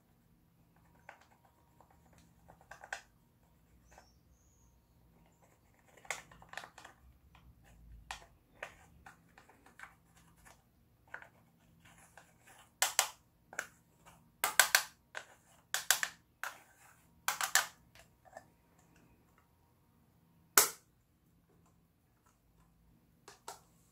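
Small plastic spoon scraping and prying pressed eyeshadow out of its compact: crumbly scratching and small clicks of plastic against the pan, with a run of louder scrapes in the middle and one sharp tap later.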